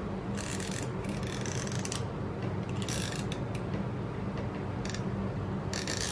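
Plastic spinning reel being turned by hand, its small clicker pawl ratcheting against the gear teeth in several short spells of rapid clicking.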